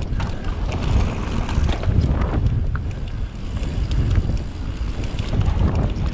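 Wind buffeting the microphone of a camera riding along on a moving mountain bike: a heavy low rumble that surges and fades, with scattered small clicks and rattles.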